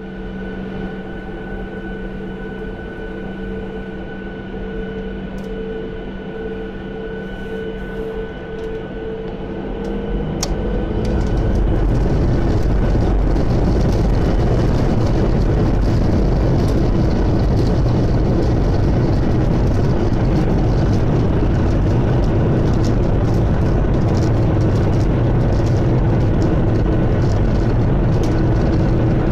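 Jet airliner's turbofan engines heard from inside the cabin. They hold a steady whine of several tones, then about ten seconds in they spool up for take-off and a loud, even roar takes over.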